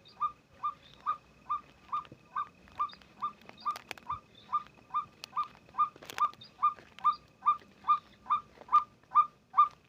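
A bird call: one short, pitched note repeated at a very steady rhythm, a little over twice a second, over a faint steady high tone.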